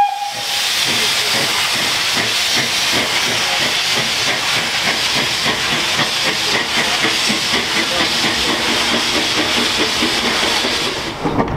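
Steam locomotive blowing off steam: a loud, steady hiss. It opens with the tail of a short whistle note and cuts off suddenly shortly before the end.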